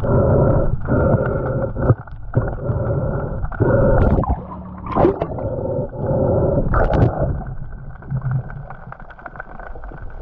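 Muffled underwater noise picked up by a diver's camera: water moving past the housing while the speargun's shooting line is hauled in by hand, with a few sharp knocks in the middle. It grows quieter over the last couple of seconds.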